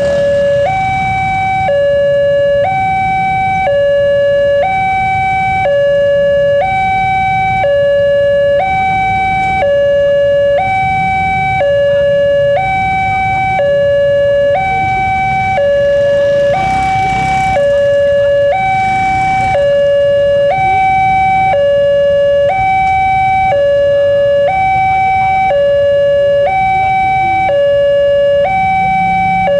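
Railway level-crossing warning alarm sounding its electronic two-tone signal, a higher and a lower note alternating about once a second without a break, the signal that a train is approaching and the crossing is closed.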